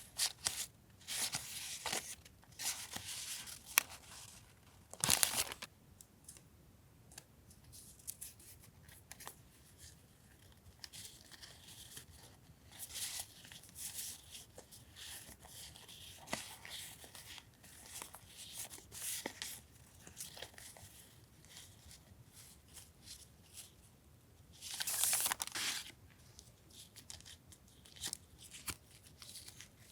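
Close-up paper and packaging rustling as stationery and journaling papers are handled, with louder rustles about 5 seconds in and again about 25 seconds in.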